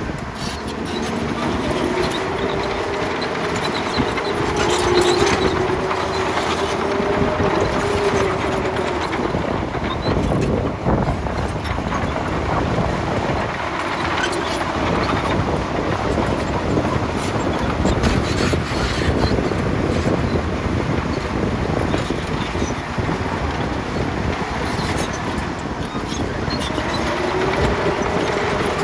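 Hyundai excavator's engine and hydraulics running under load while it digs and loads dirt, with a whine that rises and falls in pitch near the start and again near the end, over a steady rumble with scattered rattles and knocks.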